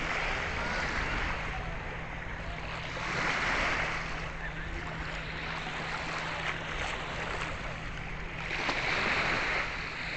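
Small waves washing onto a sandy shore in a steady hiss, swelling about three seconds in and again near the end. A low rumble of wind on the microphone runs underneath.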